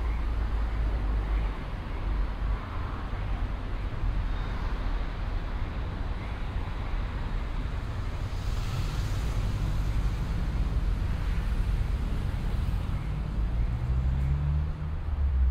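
Street traffic ambience: a steady low rumble of vehicle engines. There is a brief hiss about nine seconds in, and an engine note rises near the end.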